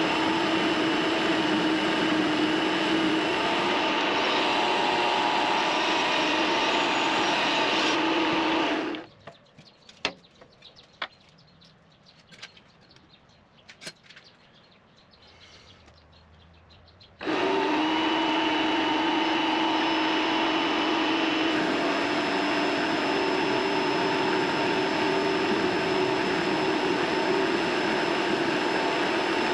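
Mini lathe running with a steady motor and gear whine. It stops about nine seconds in. A few light clicks and knocks follow during the pause, then the lathe starts up again about seventeen seconds in and runs on.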